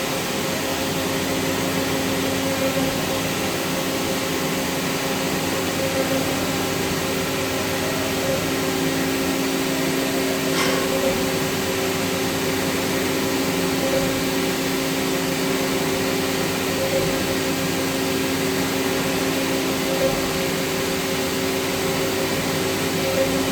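CNC machine running steadily: a constant multi-tone hum over a rushing noise, swelling slightly about every three seconds, with a single short tick about halfway through.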